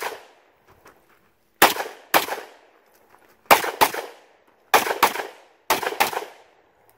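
Handgun shots fired in quick pairs: four double-taps, each two sharp shots a fraction of a second apart, with a second or so between pairs.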